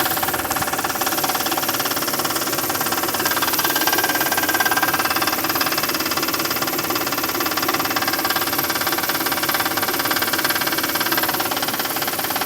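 Toyota 1MZ 3.0-litre V6 engine idling steadily with a knock, a knock that comes on after the engine has idled for a long time.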